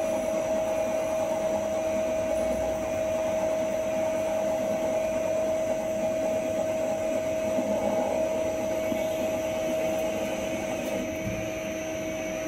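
CK0640 CNC lathe turning a metal bar: a steady whine from the spindle over the hiss of the cut, with chips coming off the part. The sound falls a little near the end as the tool moves away from the work.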